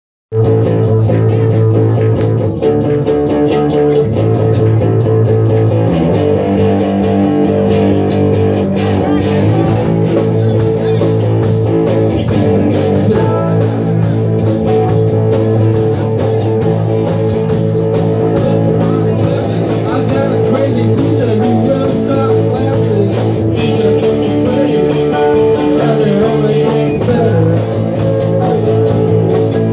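Live rock band jamming: electric guitars, bass guitar and drum kit playing loud and continuously, with the cymbals' steady beat coming in brighter about ten seconds in.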